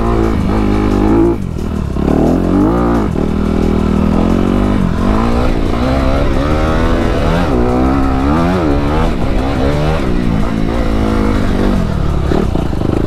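2019 Honda CRF250RX's single-cylinder four-stroke engine heard on board, revving up and dropping back over and over as the throttle is opened and shut through the track's sections. There is a short dip in level about a second and a half in.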